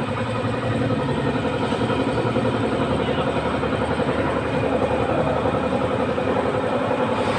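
Suzuki GD110 motorcycle engine running steadily with an even, rapid firing pulse and no revving.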